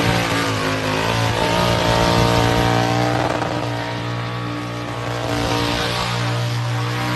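Supercharged burnout car's engine held at high, steady revs while its rear tyres spin in a burnout, with the hiss of spinning rubber over the engine note. The revs edge up about a second in, then hold.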